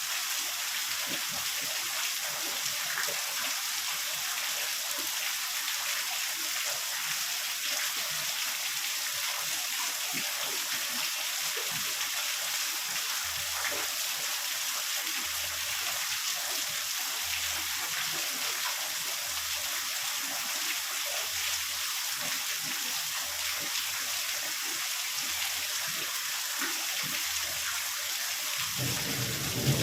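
Heavy rain falling as a steady, even hiss. Near the end a low rumble of thunder sets in.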